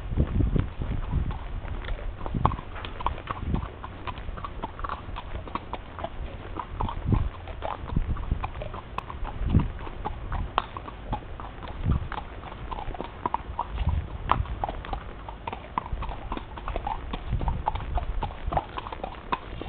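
A horse walking at a slow pace, its hooves giving irregular soft clip-clop steps, over a steady low rumble.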